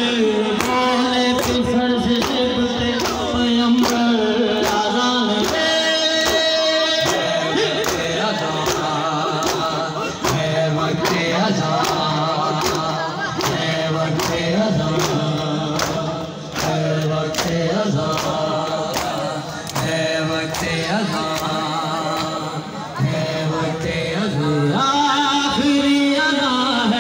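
Men chanting a nauha lament, with a steady, even beat of open hands striking bare chests in matam.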